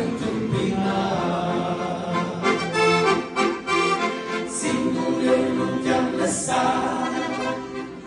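Two accordions playing a slow Romanian gospel song, with men's voices singing along in harmony.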